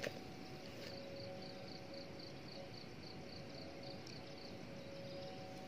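Insect chirping, a high note repeating about four times a second for a few seconds, over two faint steady tones that come and go and a low background hiss.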